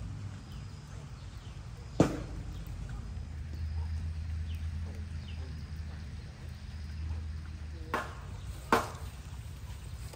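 Four sharp, single knocks spaced irregularly over a steady low rumble, the first about two seconds in and three close together near the end.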